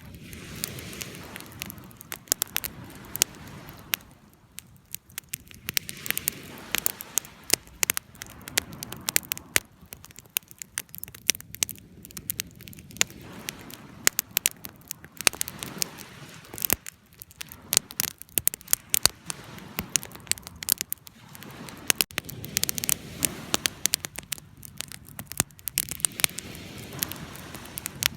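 Wood fire burning, with many sharp irregular crackles and pops over a soft hiss that swells and fades every few seconds.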